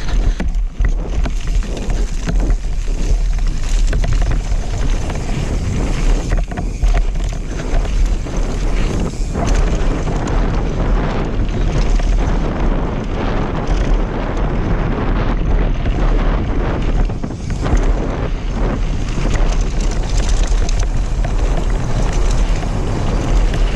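Wind buffeting an action camera's microphone as a mountain bike runs fast downhill, with the constant rumble and rattle of tyres and frame over loose gravel.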